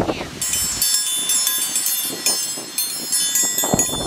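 Hand-forged heart-shaped iron dinner bell rung with an iron striker rod: rapid clanging strikes, several a second, each leaving a bright high ringing that carries on between strikes, stopping shortly before the end.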